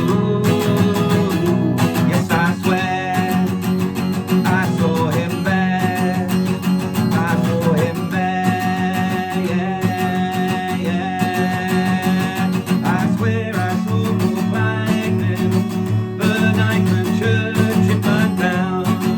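Instrumental break of a song: strummed guitar chords under a held lead melody line that bends and wavers in pitch.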